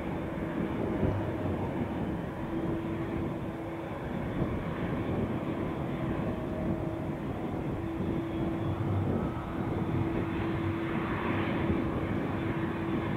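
Twin turbofan engines of an Airbus A220 (Bombardier CSeries) running at taxi power as the jet rolls along the taxiway. It is a steady, even rush of engine noise with a steady low humming tone that fades in and out.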